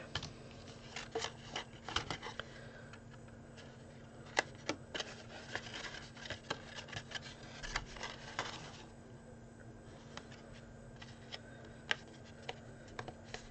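Stiff cardstock being handled and folded by hand around a small card box: rustling, crisp crackles and light taps, busiest in the first part, thinning out to occasional taps near the end.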